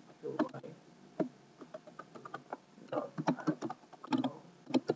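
Computer keyboard being typed on: irregular keystroke clicks, several a second, with short pauses between bursts.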